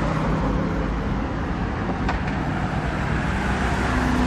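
Road traffic noise: a steady low rumble of vehicle engines and tyres, with a brief click about two seconds in.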